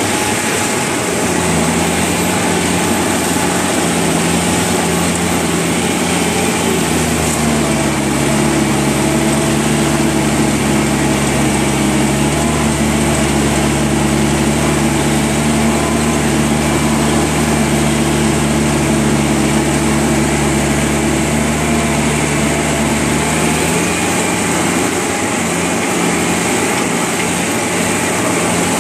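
Engine of a piece of construction equipment running as it drives along a dirt track, heard from the operator's seat. The engine speeds up about seven seconds in, holds a steady higher note, and drops back near the end.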